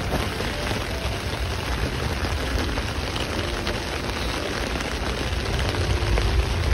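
Steady rain falling on a tarp overhead, an even hiss with a low rumble underneath.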